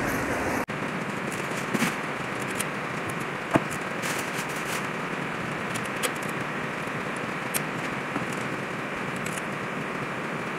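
Irregular sharp metallic clicks from a ratchet wrench turning the cylinder head bolts through a further 90-degree tightening stage, over a steady hiss.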